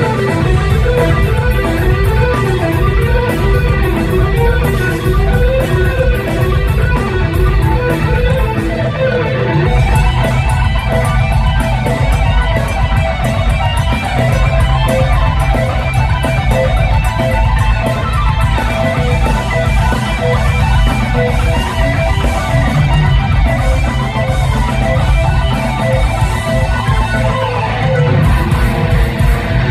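Loud live rock music: an electric guitar playing quick lead lines over bass and drums.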